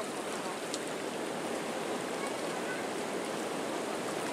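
Swollen Nysa Kłodzka river in flood after heavy rain, its water rushing steadily as it overflows onto the riverside path.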